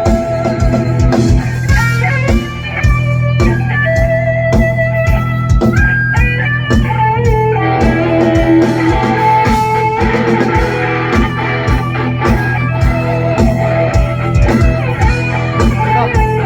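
Junior high school rock band playing live: an electric guitar melody over steady bass and drums.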